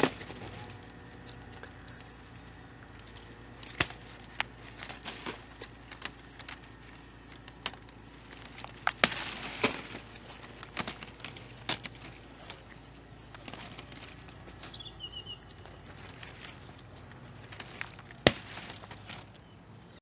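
Grapevine leaves and canes rustling and crackling as they are brushed and pushed aside at close range, with scattered sharp clicks of handling, the busiest stretch about halfway through and one sharp click near the end.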